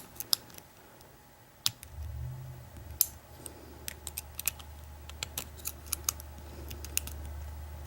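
Steel hook pick ticking and scraping against the pin tumblers of an American Lock 1100 padlock during single pin picking, with the plug held in a false set: scattered irregular sharp clicks. A low steady hum comes in about two seconds in.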